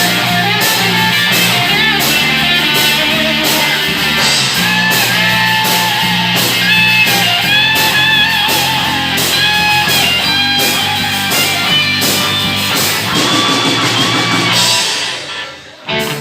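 Live rock band playing without vocals: a bending electric-guitar lead line over steady bass and a drum kit with cymbals. The music drops away sharply near the end, then picks up again.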